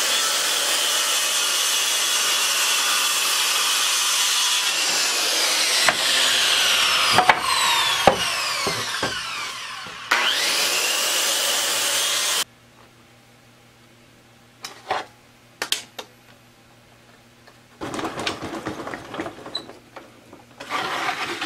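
Circular saw cutting a weathered barn-wood board for about twelve seconds, its motor pitch sagging under load partway through and picking up again about ten seconds in, then stopping abruptly. A few knocks follow, then the rubbing and scraping of a board being handled and slid across a table saw's top.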